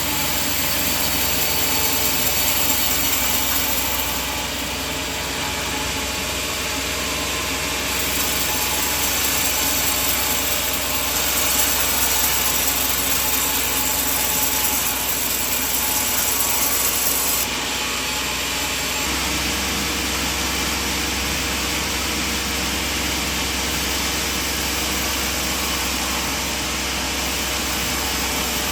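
Sawmill band saw running and cutting through coconut logs: a steady machine noise over a low hum, its tone shifting abruptly a few times.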